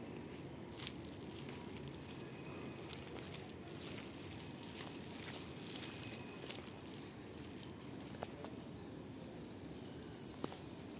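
Outdoor background ambience: a steady low hum with scattered faint clicks, and a few short high bird chirps about ten seconds in.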